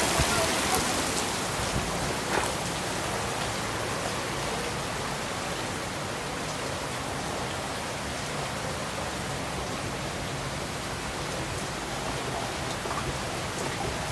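Heavy rain pouring down steadily, a dense even hiss of rain on the ground and standing floodwater, a little louder in the first couple of seconds.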